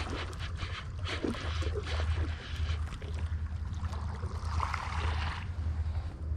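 Wind buffeting the microphone, with scattered splashes of water as a hooked bass is fought at the surface; a louder splash comes about two-thirds of the way through.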